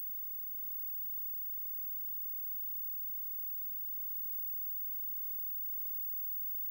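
Steady, even hiss of noise with a faint low hum underneath, with no speech or clear music.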